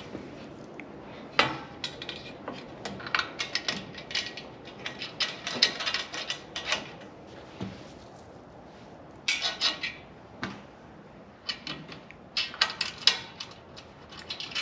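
Bolts, washers and metal rack parts clicking and clinking in irregular clusters as hardware is started by hand into a truck-bed rack's load bar and legs.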